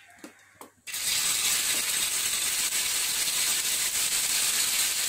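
Marinated fish slices laid into hot oil on a tawa, starting a loud, steady sizzle of shallow frying that begins suddenly about a second in.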